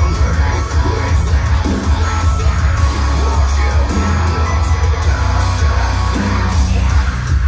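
Music with a singing voice played loudly through Revel M16 loudspeakers driven by a Vincent SP-331 hybrid tube-input power amplifier, with strong, steady bass and no subwoofer.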